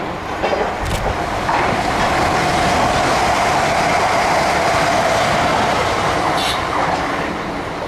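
South Western Railway Class 450 electric multiple unit passing close by, a loud steady rush of wheels and traction running that swells about a second and a half in and fades near the end, with a few brief clicks from the wheels over the rail joints.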